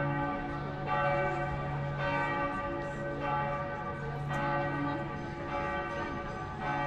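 Church bells of Antwerp's Cathedral of Our Lady pealing: several bells sounding together, a fresh stroke about every second over the steady hum of the bells still ringing.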